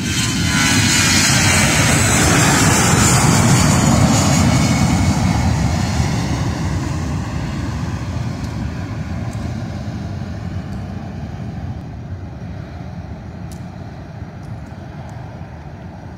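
Airbus A320-family airliner's jet engines at takeoff thrust, a loud deep roar that swells in the first second as it lifts off. It then slowly fades as the jet climbs away.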